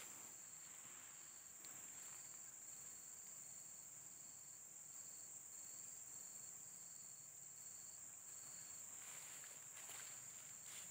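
Faint insect chorus: a steady high-pitched drone, with a second insect chirping in an even rhythm of about two chirps a second that stops near the end.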